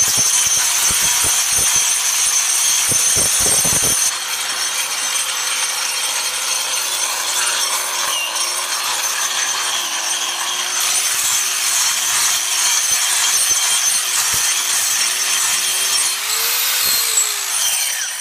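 Angle grinder with a cup wheel grinding old paint and rough edges off a concrete step: a steady harsh grinding over the motor's whine, rougher and louder with chattering clicks for the first four seconds. Near the end the motor's pitch rises briefly, then the grinder stops.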